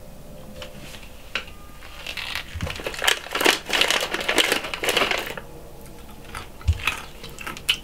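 Crinkling and crackling of a packet of peanuts being torn open and handled, thickest over a few seconds in the middle, with scattered clicks before and after.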